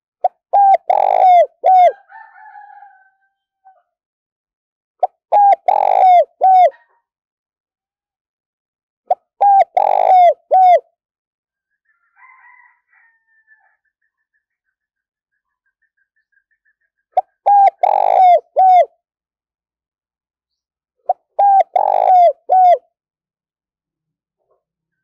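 Spotted dove cooing its territorial song: five phrases of three or four quick, pitched coos, repeated about every four seconds with one longer pause in the middle. Fainter, softer calls follow the first and third phrases.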